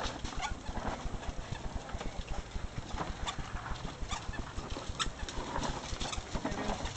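Plastic wheels of a child's ride-on toy rattling and clattering over a bumpy dirt path, an irregular run of small knocks and clicks with a few sharper clicks here and there.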